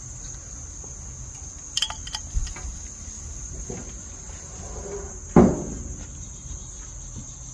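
Crickets chirring: a steady high trill throughout. A few sharp clicks sound just before two seconds in, and a single loud thump comes a little past five seconds in.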